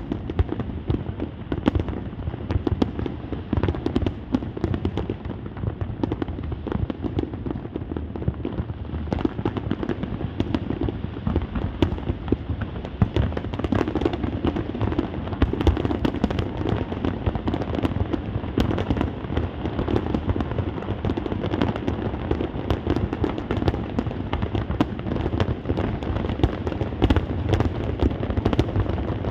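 A fireworks display: a dense, continuous barrage of bangs and crackles, the bursts overlapping with no pauses.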